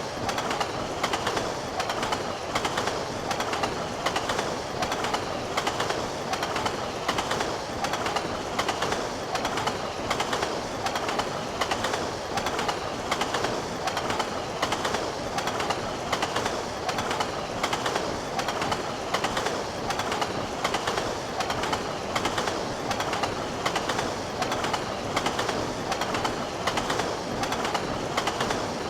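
Train running on rails, a steady rumble with an even, regular clickety-clack of wheels over rail joints.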